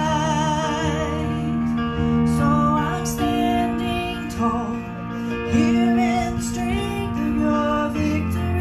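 A woman singing a slow song with vibrato, accompanied by her own electronic keyboard playing sustained chords.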